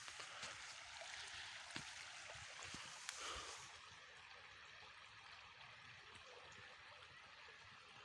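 Faint, steady rush of a shallow stream running over a stony bed, a little louder for the first few seconds, with a few small clicks.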